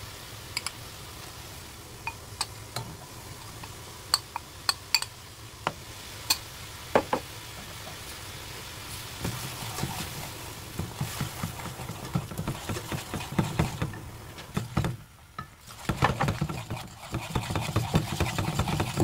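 Broth bubbling at a boil in a pan, with scattered sharp clicks. From about halfway, a wire whisk stirs glutinous rice flour paste into it as it thickens, in quick strokes against the pan.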